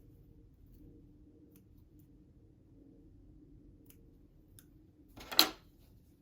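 Quiet room with a faint low hum and a few light clicks, then, about five seconds in, one short loud rustling noise from handling the sewing work.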